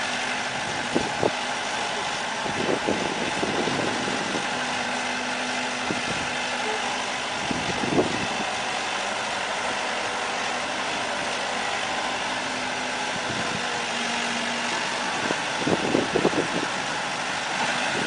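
Backhoe loader's diesel engine running with a steady hum, broken by scattered knocks and clunks. The sharpest knock comes about eight seconds in, and a cluster of knocks comes near the end.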